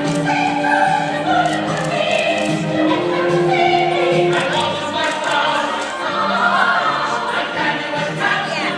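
Choral music: a choir singing sustained, shifting notes together.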